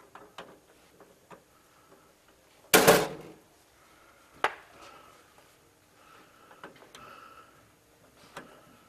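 Handling noises from work on an electrical switchboard and a test meter's leads: small clicks and knocks, with one louder, short rattling clatter about three seconds in and a sharp click about a second later.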